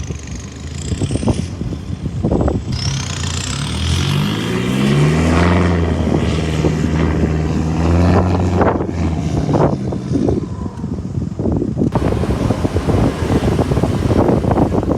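A 4x4's engine revving hard as it strains, bogged in soft sand: the revs climb about three seconds in and are held high for several seconds before easing. A high rising whine and a rough rush of noise with knocks run over it.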